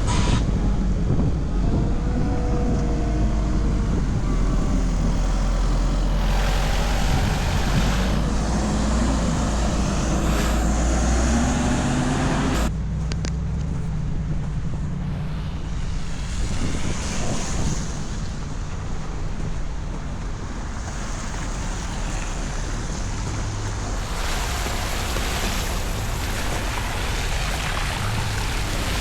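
Street traffic hissing past on a slushy road, with wind rumbling on the microphone. The sound changes abruptly about halfway through, when the higher hiss drops away and mostly the low rumble remains.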